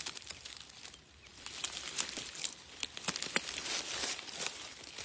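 Dry grass and dead stalks rustling and crackling as they are pushed aside and handled, with sharp cracks every so often.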